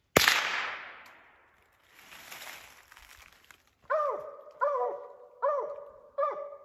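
A single gunshot at a squirrel, a sharp crack that rings off through the woods for about a second. About four seconds in, a Mountain Cur barks four times, a bark every three-quarters of a second.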